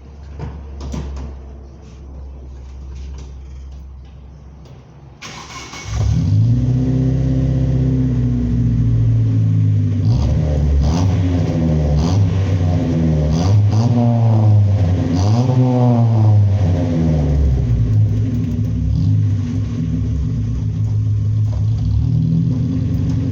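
1998 Chevy Pop's engine through a modified exhaust (original resonator removed, a new welded pipe to a bullet muffler, catalytic converter still fitted). After a few quieter seconds of low rumble it comes in loud about six seconds in, is revved up and down several times, then settles to a steadier run.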